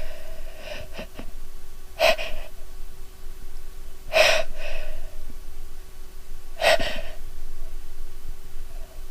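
A woman's sharp, gasping in-breaths, about four of them roughly two seconds apart: the catching breaths of a sneeze building up, her nose tickled by a sneeze-triggering soap.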